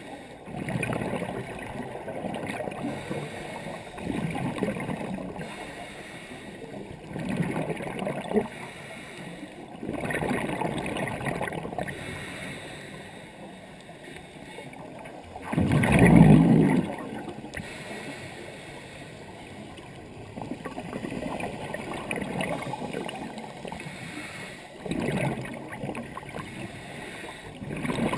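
Scuba divers' regulator exhalations underwater: bursts of bubbling and gurgling every three to five seconds, heard through a GoPro's waterproof dive housing. The loudest burst comes about halfway through.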